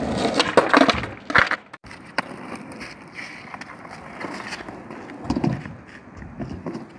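Skateboard wheels rolling on rough asphalt, with sharp clacks of a board hitting the ground. Loudest in the first second and a half, then quieter rolling with a few knocks about five and a half seconds in.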